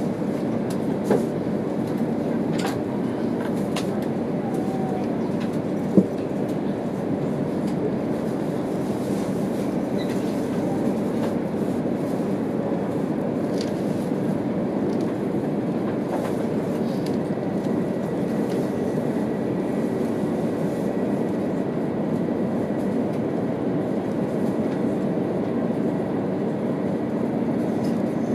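Steady low rumble and hum inside a stationary E2 series Shinkansen car, with a few sharp clicks, the loudest about six seconds in. A faint steady high tone comes in about halfway through.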